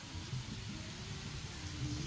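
Chilli sauce sizzling and bubbling in a large steel wok as liquid is poured in, with soft background music.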